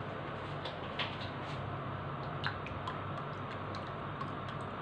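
Steady kitchen background hiss and low hum, with a few faint, scattered clicks.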